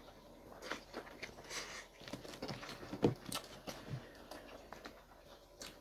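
Close-miked eating sounds: chewing and biting, with scattered short crunches and clicks, the loudest about three seconds in.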